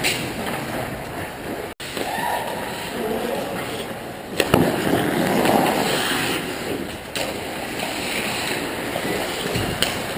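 Ice hockey play: skate blades scraping and carving the ice, with a few sharp clacks of sticks and puck.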